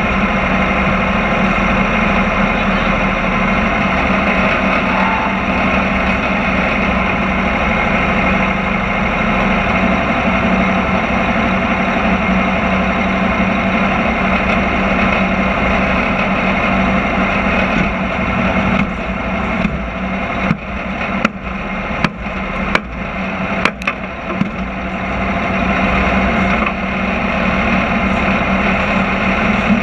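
Dirt modified race car's crate engine idling steadily while parked, with a handful of sharp clicks or knocks about two-thirds of the way through.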